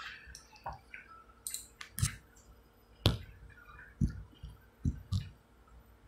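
Several faint, irregularly spaced clicks and soft knocks, the sharpest about three seconds in.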